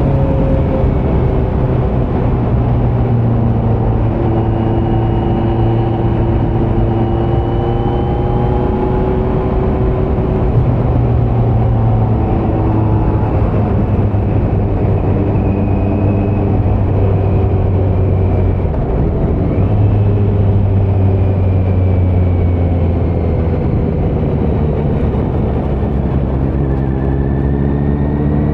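2018 Kawasaki Z900's inline-four engine running through a Leo Vince muffler on stock headers with no dB killer, while the bike is ridden at a fairly steady pace. The engine note holds level, dips briefly about two-thirds of the way through, then rises near the end as the throttle opens.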